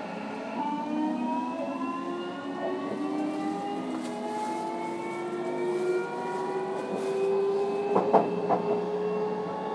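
A JR Kyushu 305 series EMU's Toshiba VVVF inverter and permanent-magnet synchronous traction motors whining from under the car, several tones climbing slowly and steadily in pitch as the train accelerates. A few sharp knocks come about eight seconds in.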